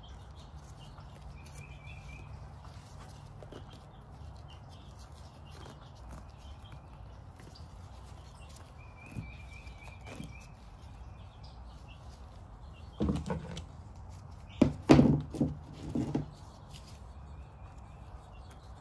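Several dull thumps and knocks, about thirteen to sixteen seconds in, from hands handling a chicken and bandaging material on a table. Under them, a small bird's short trill repeats three times over a low steady background.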